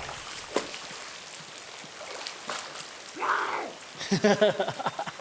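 Steady rushing water of a mountain trout stream. Near the end come a short call-like sound and then a brief chattering sound.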